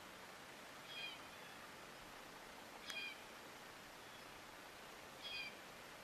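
Faint background hiss broken by three short, high-pitched animal calls about two seconds apart, the middle one with a sharp click.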